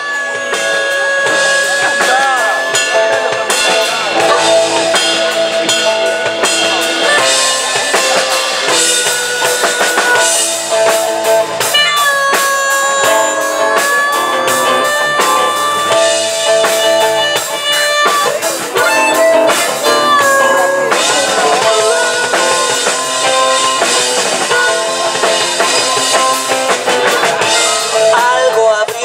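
Live rock band playing an instrumental passage: drum kit with electric and acoustic guitars, the lead line holding long notes that bend in pitch.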